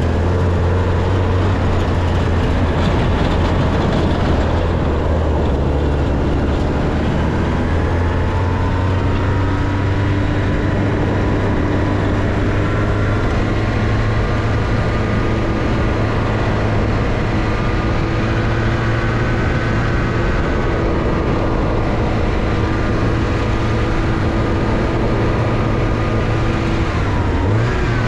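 A Porsche 944's four-cylinder engine is heard from the outside of the car, running at fairly steady revs with a slowly drifting pitch, over the rush of tyres on loose dirt. The pitch climbs briefly near the end.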